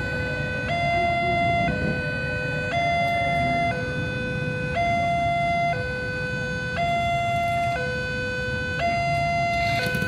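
Electronic two-tone warning siren alternating between a low and a high note about once a second, over the low rumble of a slowly approaching diesel-electric locomotive.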